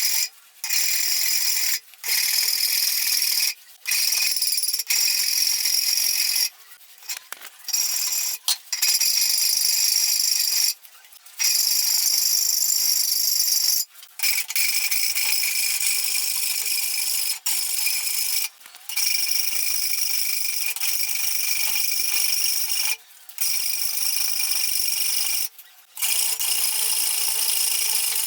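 A power tool running and working material, with a steady whine over a rasping noise. It comes in a series of short takes, each cut off abruptly.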